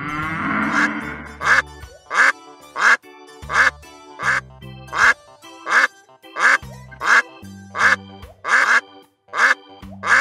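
Ducks quacking over and over, about a dozen loud quacks at a steady pace of roughly one every 0.7 seconds, over background music.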